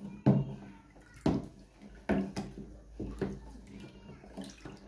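Wooden spoon stirring a milk and yogurt mixture in a plastic tub: liquid sloshing, with irregular knocks of the spoon against the plastic, about one a second.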